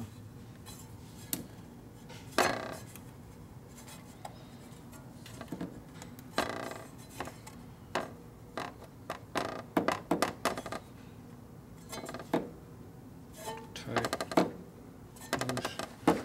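Rivera clutch friction plates clinking and scraping against the steel clutch basket as they are worked in by hand, with scattered metallic clinks, some ringing briefly. The plates are still dragging some in the basket slots.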